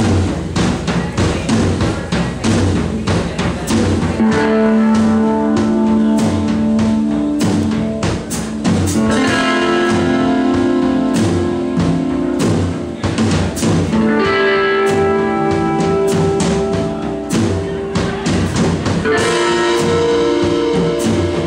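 Live blues band playing without vocals: electric guitar over drums, bass and piano, with long held guitar notes from about four seconds in.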